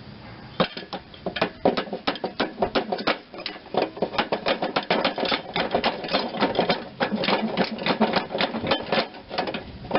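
Rapid, uneven run of sharp metal clicks and knocks from hand-tool work on a riding-mower deck, starting about half a second in.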